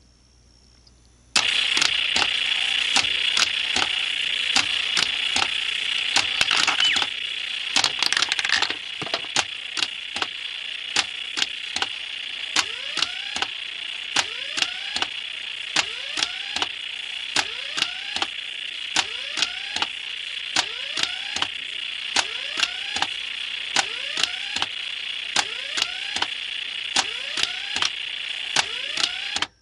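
Retro Nishijin Red Lion hanemono pachinko machine in play: a steady metallic rattle of steel balls starts about a second in and stops sharply near the end. Over it come sharp clicks about twice a second, each followed by a short rising tone.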